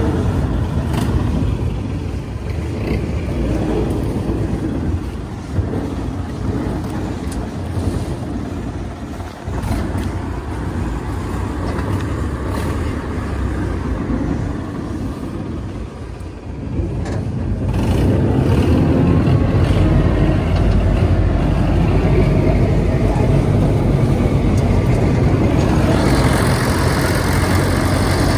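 David Brown 995 tractor's diesel engine running. It dips briefly about two-thirds of the way in, then runs louder and steadier for the last ten seconds.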